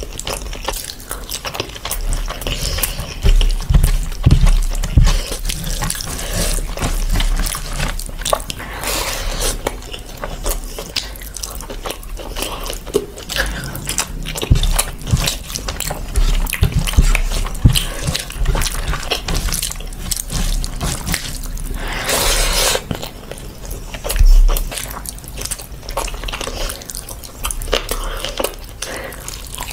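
Wet squelching and sticky smacking of a bare hand mixing biryani rice into curry gravy, between mouthfuls of eating by hand with chewing and lip-smacking. A short, louder noisy rustle comes a little over two-thirds of the way in, followed by a dull thump.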